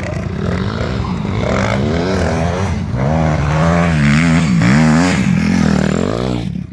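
Dirt bike engine revving, its pitch rising and falling over and over as the throttle is worked, loudest about four to five seconds in, then cutting off suddenly near the end.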